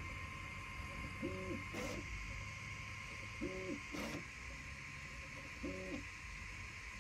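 Entina Tina2 Plus 3D printer printing: its stepper motors give three short hums, each rising in pitch, holding and falling, about every two seconds as the print head travels. A steady high whine runs underneath, with a faint tick between the hums.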